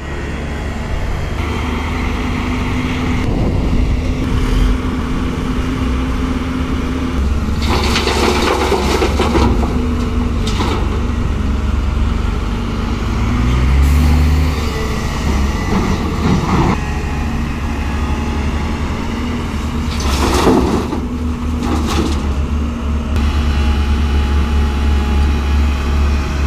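JCB crawler excavator's diesel engine running steadily under load as it digs, its pitch rising briefly about halfway through. Several short loud rushing noises break over it as earth and rock are scooped and spilled from the bucket.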